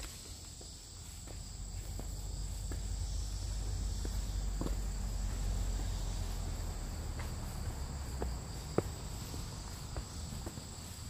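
A steady, high-pitched chorus of insects, with scattered footsteps on a dirt trail and a low rumble underneath.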